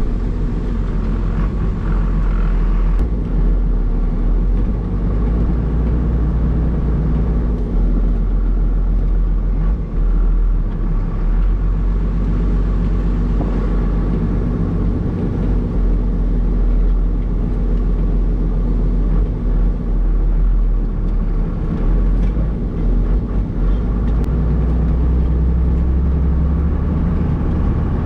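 A 1994 Dodge Cummins pickup's 5.9-litre inline-six turbodiesel heard from inside the cab, running steadily under load as the truck plows snow. Its note shifts in level and pitch a few times as the truck moves.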